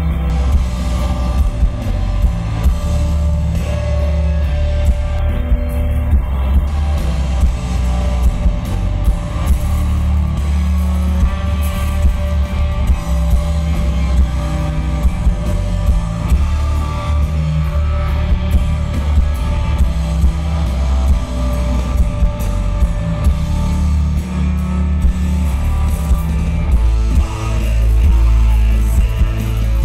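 Post-metal band playing live: heavily distorted electric guitars, bass and a drum kit, loud and dominated by the low end, picked up from the audience.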